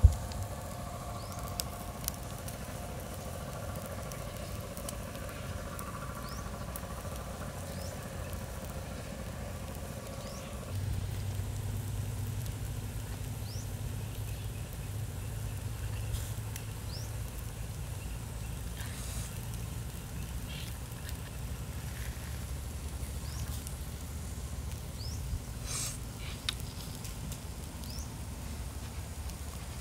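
Pork ribs grilling on sticks over wood embers: quiet outdoor ambience with scattered small crackles and ticks. It opens with a sharp click, and a steady low hum comes in about eleven seconds in.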